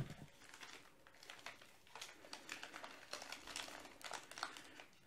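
Faint crinkling and rustling of wrapped ration cereal-bar packets as they are lifted out of a plastic container, in irregular short crackles.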